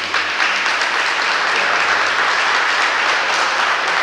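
Crowd of spectators applauding steadily.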